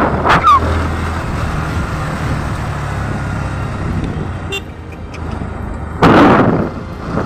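Motorcycle engine running steadily while riding, with a loud burst of noise about six seconds in.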